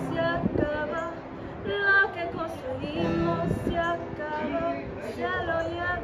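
A woman singing a song with a strummed acoustic guitar accompanying her.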